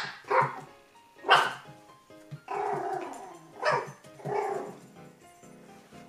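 Poodle puppies yapping in short, sharp, high barks, about six of them, with one longer drawn-out cry around the middle.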